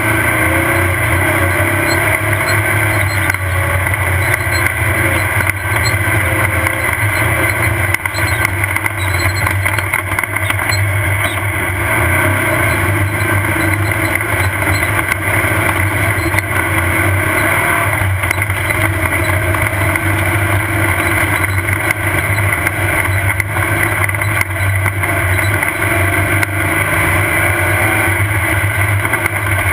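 Off-road race buggy's engine running steadily at speed, with many small knocks and rattles over the top.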